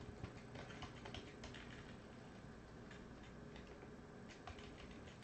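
Faint computer keyboard keystrokes, clustered in the first second or two and then more scattered, over a low steady room hum.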